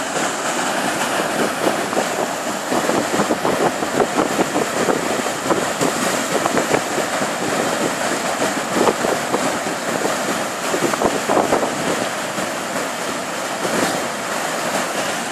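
Whitewater churning in a stopper wave on a man-made course: a steady, loud rush of foaming water with constant crackling spray.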